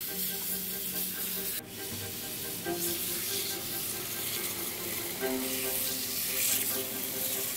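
Tap water running steadily from a pull-down kitchen faucet into a stainless steel bowl in a steel sink, a continuous hiss with a brief dip about one and a half seconds in. Soft bowed-string music plays underneath.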